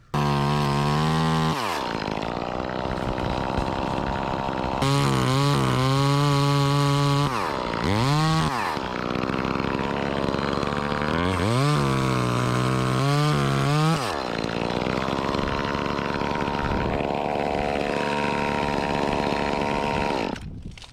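Chainsaw engine running at high revs, with the pitch dropping away and climbing back several times as it is throttled down and revved up again.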